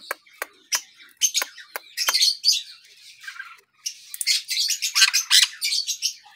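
Sun conures calling: rapid runs of short, high-pitched chirps and squawks, in two dense bouts, one about a second in and a longer one from about four seconds in.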